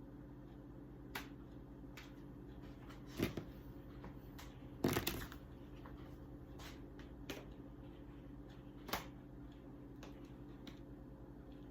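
Scattered rustles and light clicks, two of them louder about three and five seconds in, over a steady low hum.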